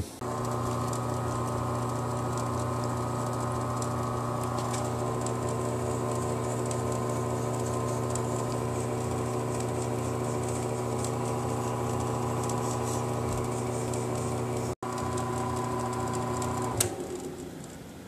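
Wood lathe motor running with a steady hum, turning at its low sanding speed while the pen blank is wet-sanded with micro-mesh. The hum stops near the end.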